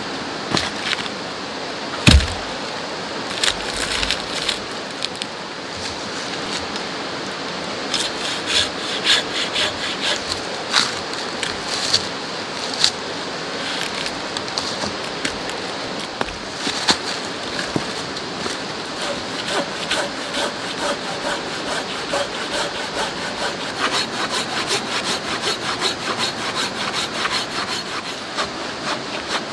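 Folding pruning saw cutting through a log, its blade rasping back and forth in repeated strokes that settle into a steady rhythm near the end. A single heavy wooden knock about two seconds in.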